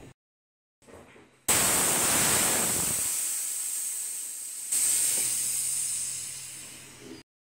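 High-pressure air hissing out of a scuba tank's fill hose connected to a PCP air rifle, in two loud rushes: one starts about a second and a half in, the second about three seconds later, and each fades away. It is the pressure being vented from the fill line once the rifle's reservoir is charged to about 250 bar.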